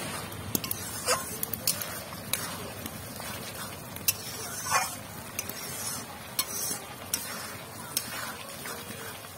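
Spiced tomato masala sizzling and bubbling in a metal kadai, with a metal spatula clicking and scraping against the pan as it is stirred.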